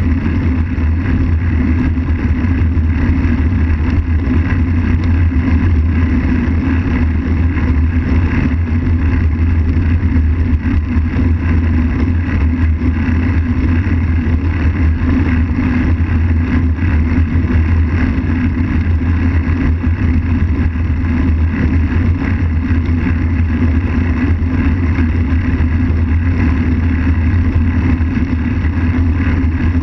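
Steady rumble of wind buffeting and tyre noise on asphalt, picked up by a camera mounted on a moving road bike.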